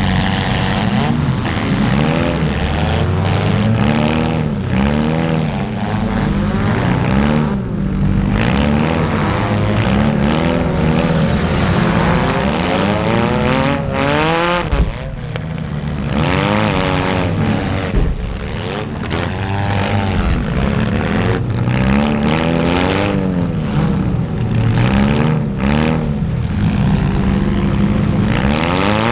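Several small-car engines revving up and down hard at once, their pitches rising and falling over one another, with sudden bangs of cars crashing, the loudest about fifteen seconds in.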